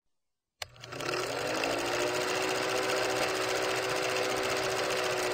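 Old film projector sound effect for a countdown leader: a click under a second in, then a fast, even mechanical clatter over a steady motor hum that rises slightly as it starts.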